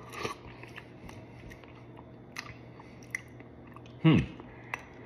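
Close-miked chewing of a spoonful of soupy chili con carne with rice and corn: soft wet chewing with many small mouth clicks. About four seconds in comes a loud, short 'hmm' from the eater that falls in pitch.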